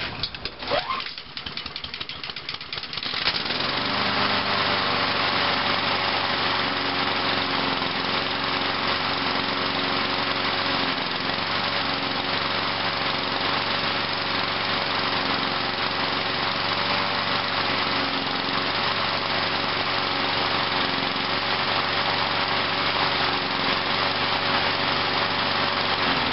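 Craftsman push mower's small four-stroke engine being pull-started cold after priming, on a freshly replaced starter rope. It catches about three seconds in, then runs steadily at a constant speed.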